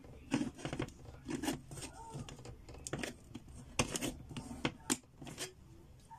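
Knife blade punching and levering through the thin tin lid of a coin-bank can, giving irregular sharp metallic clicks and scrapes as the lid is cut open by hand without a can opener.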